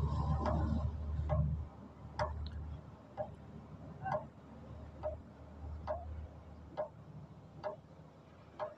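Hand feed (priming) pump on a Komatsu PC200 excavator's fuel filter head being worked in and out, with a sharp click at each stroke about once a second, nine in all. The strokes bleed air from the diesel fuel system after a filter change, and the pump has gone heavy, the sign that the lines are filling with fuel.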